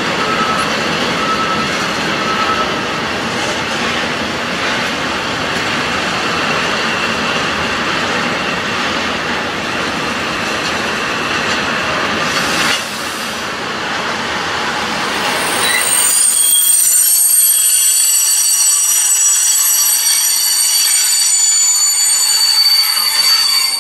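Freight train of tank wagons rolling slowly past with a steady rumble and rattle of wheels on rail, and one sharp crack about halfway through. About two-thirds of the way in, the rumble drops away and several high, steady wheel squeals ring out together until the end.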